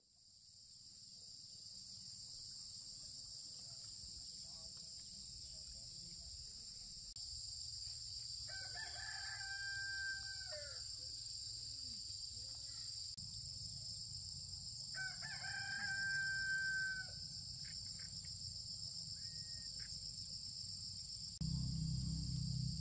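A rooster crowing twice, each crow about two seconds long and dropping in pitch at the end, over a steady high-pitched drone of insects.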